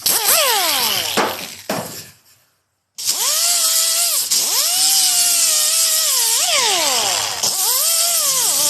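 Air-powered mini die grinder with a 3-inch 40-grit disc grinding rust from car body metal. Its whine falls away early on, cuts out briefly, then it runs again with the pitch dipping and recovering as the disc is pressed into the metal.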